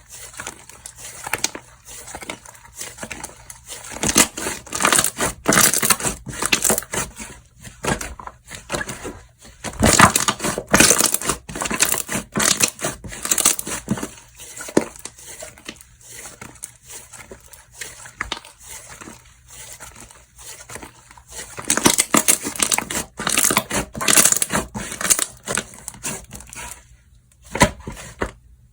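Slime being handled and pressed by hand: dense sticky clicking and crackling that swells in several louder spells and stops just before the end.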